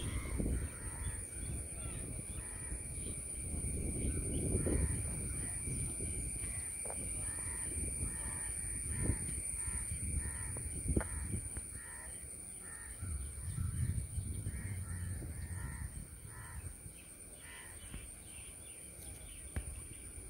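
Crows cawing repeatedly, many short calls in a loose series that thins out near the end, over a steady high-pitched hum and a low rumble.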